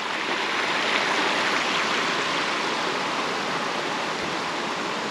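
A river flowing with a steady rushing hiss of water.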